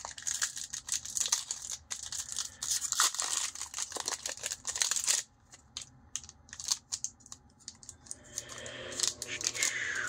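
Foil wrapper of a Pokémon trading card booster pack crinkling and tearing as it is ripped open, for about five seconds. Then quieter rustling and small clicks as the stack of cards is worked out of the wrapper, with the crinkling picking up again near the end.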